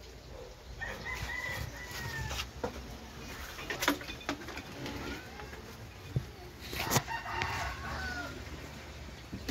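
A rooster crowing, about a second in and again around seven seconds in, with a few sharp knocks in between.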